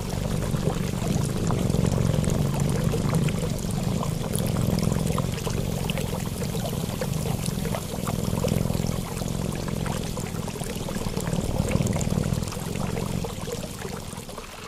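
Steady sound of running water, trickling and pouring, with scattered small splashes; it fades out near the end.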